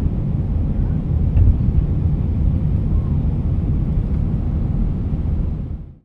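Airbus A319 jet airliner cabin during takeoff: a steady low rumble of engine and airflow noise, fading out near the end.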